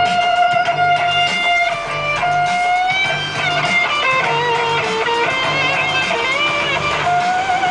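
Rock music playing on a radio: electric guitar with long, bending notes over a steady low beat.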